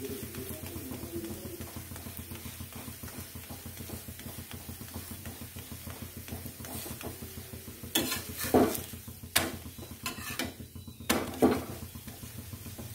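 Flat steel spatula pressing and scraping a ghee-roasted millet flatbread on a hot tawa, with a faint sizzle. A run of metal scrapes and knocks on the griddle comes about eight seconds in and lasts a few seconds.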